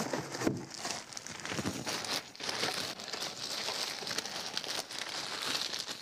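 Crinkling and rustling of the white protective wrapping around a PTZ camera as it is handled and pulled off, a continuous crackle of many small clicks.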